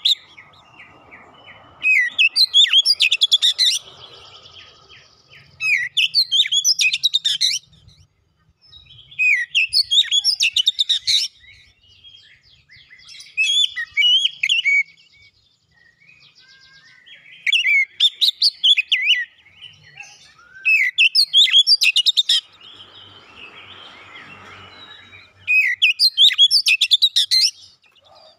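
Oriental magpie-robin (kacer) in full song: about seven loud phrases of whistles and fast runs of notes, each lasting a second or two, with short pauses between them.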